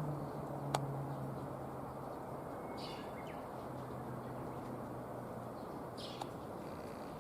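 Small songbirds giving two short high calls, about three seconds apart, over steady outdoor background noise. A low steady hum fades out a little past halfway, and a single sharp click sounds under a second in.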